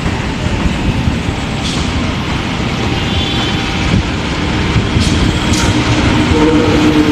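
A CC201 diesel-electric locomotive hauling carriages approaches. Its engine and wheels make a rumble that grows steadily louder, and a steady low engine hum comes in near the end.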